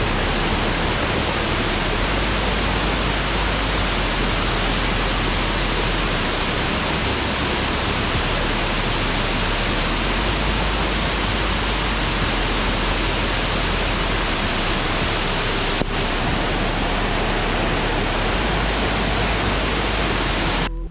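Waterfall rushing: a steady, loud wash of falling water with no pauses or changes.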